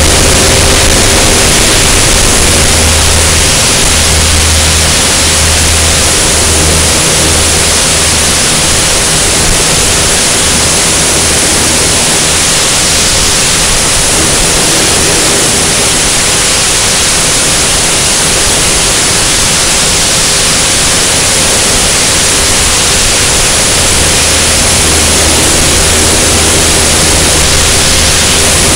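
Heavy wind rushing over an exterior, tail-mounted camera on a high-wing single-engine light plane during its takeoff roll and climb, with the engine and propeller's steady low hum underneath.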